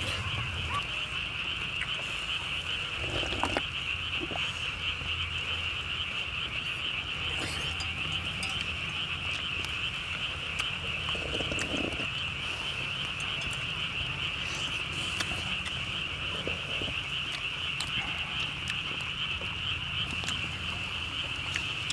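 A dense, continuous chorus of frogs calling, with a low hum beneath and a few light clicks and knocks scattered through it.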